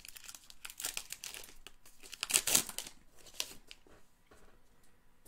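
Trading-card pack wrapper being torn open and crinkled by hand, a run of sharp crackles loudest a little over two seconds in, dying down after about four seconds.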